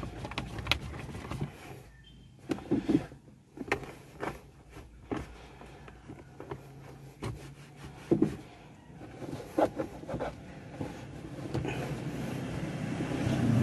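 A cloth rubbing and wiping over a car's plastic centre console and dashboard, with scattered light clicks and taps, over a low steady hum.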